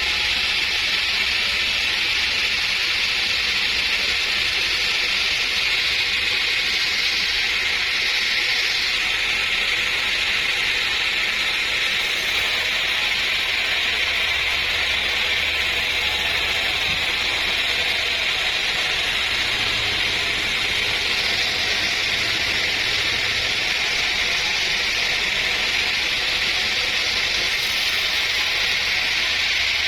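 Sawmill saw running steadily through trembesi (rain tree) timber: a continuous, even rushing noise with no breaks.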